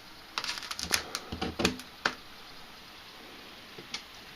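Hands handling hard objects: a quick run of sharp clicks and light knocks from about half a second to two seconds in, then one more click near the end.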